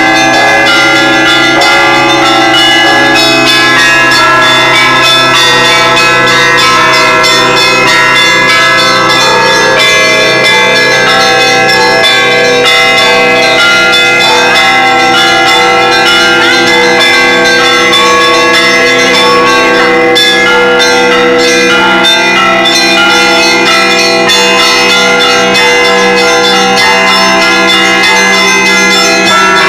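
Russian Orthodox church bells rung by one bell-ringer in a continuous peal, many bells struck in a rapid pattern with their tones ringing over one another.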